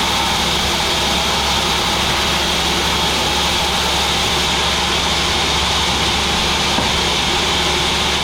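Sawmill machinery running steadily, a continuous mechanical hum with a hissing band in the upper register.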